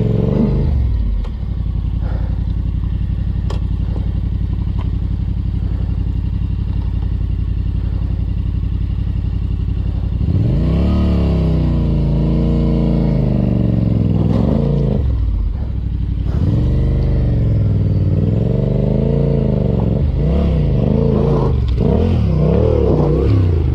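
Yamaha Ténéré 700's parallel-twin engine idling steadily. About ten seconds in it is revved up and down again and again as the bike is worked over loose rocks.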